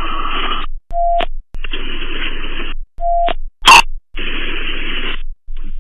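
Police radio scanner with no one speaking: repeated bursts of static hiss that each cut off sharply. Two short electronic beeps come about two seconds apart, with a loud squelch crackle between them near the middle.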